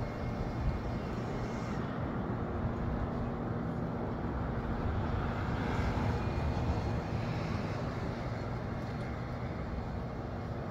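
Breezy wind rushing and buffeting against the microphone, a steady low rumble that swells a little about halfway through.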